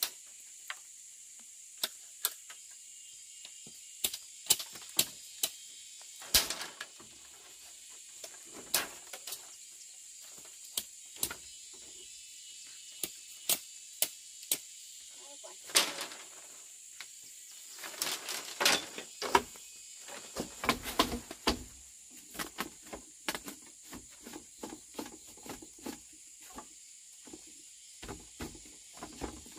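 Insects droning steadily at a high pitch, with irregular knocks and clicks over it, a few of them loud and bunched together in the middle stretch.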